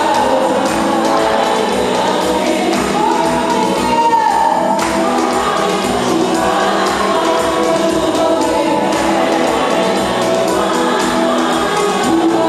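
Gospel praise song sung by a church congregation, led by a woman singing into a microphone, with a steady beat underneath.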